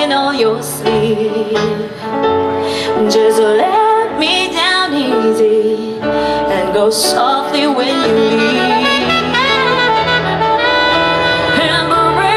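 Saxophone playing a melodic solo line with vibrato over the band's accompaniment in a soul ballad performed live.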